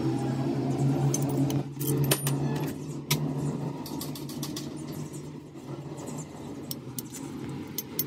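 Metal tools and parts clinking and tapping against each other in irregular sharp clicks. Under them is a steady low hum that fades out a few seconds in.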